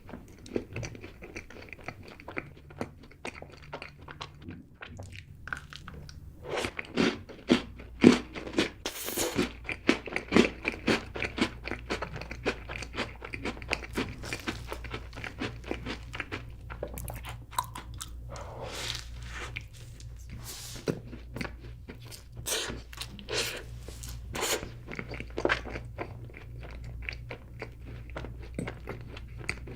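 Close-miked mukbang eating: repeated crunchy bites and wet chewing of a crunchy sweet dessert, crackling in quick irregular runs.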